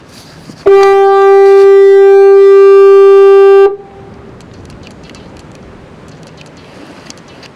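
Fog horn sounding one long, very loud honk at a steady pitch. It starts under a second in, lasts about three seconds and cuts off sharply.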